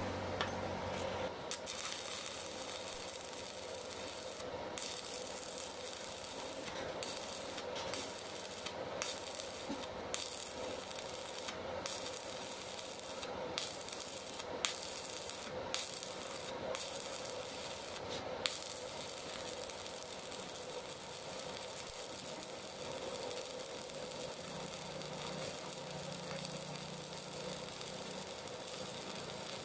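Electric arc welding on a broken dumper truck rear axle housing: a steady hiss from the arc, broken off briefly about a dozen times in its first twenty seconds.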